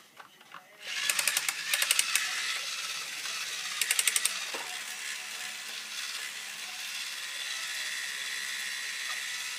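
Handheld power drill-driver running continuously as a screw is driven in, starting about a second in, with bursts of rapid ratcheting clicks near the start and again about four seconds in.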